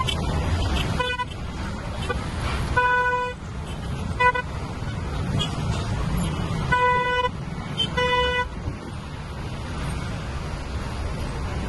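A vehicle horn honks five times in short toots, all at the same pitch, over the steady rumble of engines and road traffic.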